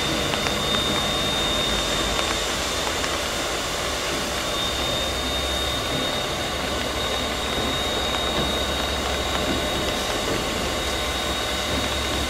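Steam locomotive standing still, hissing steadily as steam escapes around its front end, with a thin high tone and a low steady hum underneath.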